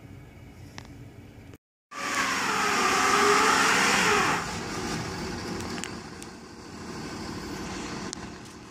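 A stuck truck's engine running on a sheet of ice: a steady low hum, a short dropout about a second and a half in, then loud revving for about two seconds with a rising and falling whine as the driver tries to pull free, before it settles to a quieter, steady run.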